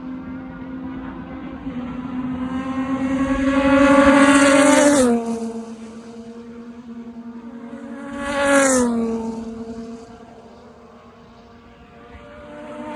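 TCL Class A race car engines passing at speed. The engine note climbs as each car approaches and drops sharply as it goes by: a loud pass about five seconds in, another near nine seconds, and a third starting near the end. A steady engine drone carries on between passes.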